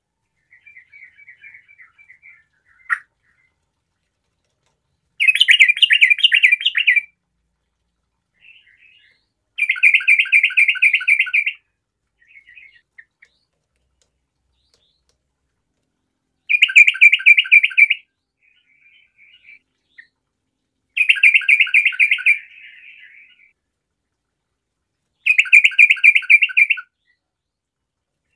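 Sooty-headed bulbul (trucukan) singing: five loud phrases of fast, evenly repeated notes, each lasting a second or two, with softer short chatter between them.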